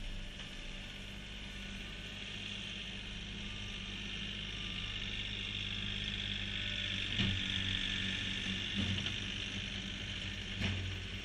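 Kioti CK3510 tractor's three-cylinder diesel engine running steadily as the tractor drives and pushes snow with a 7 ft snow pusher, with a few short knocks in the second half.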